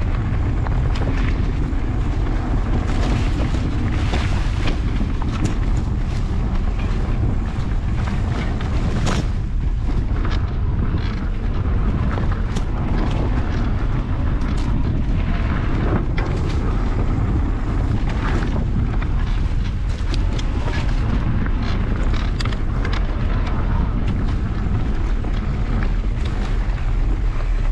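Wind buffeting the microphone over a steady low rumble as a mountain bike rolls along a sandy dirt track, with frequent clicks and rattles from the bike over the bumps.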